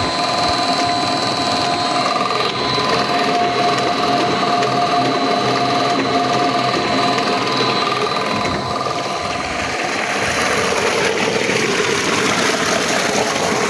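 Electric motor belt-driving an irrigation water pump, running with a steady whine. Over the second half the whine fades under the rush of pumped water gushing from the outlet.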